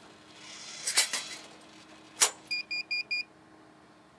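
Laurel electronic vending machine's electronics beeping four quick times as power is restored after the DigiMax retrofit, preceded by a couple of sharp clicks from handling the machine.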